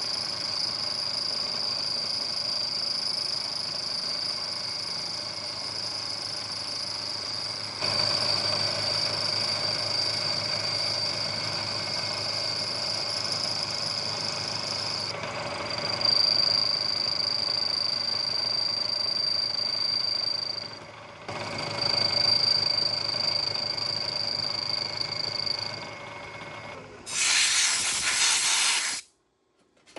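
Metal-cutting machine tool running and cutting steel, with a steady high whine over the machine's running noise; the sound changes abruptly several times. Near the end there is a loud burst of hiss lasting about two seconds, then it cuts off.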